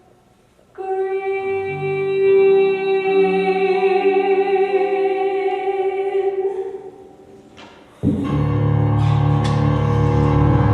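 Instrumental music from the musical's score: a held, sustained chord that comes in about a second in and fades away, then a louder, fuller chord with deep bass notes enters near the end.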